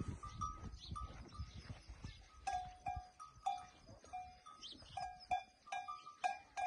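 Short bell-like notes ringing in an uneven repeating pattern at two pitches, one higher and one lower, coming thicker from about two and a half seconds in. Low rumbling sounds run under the first half.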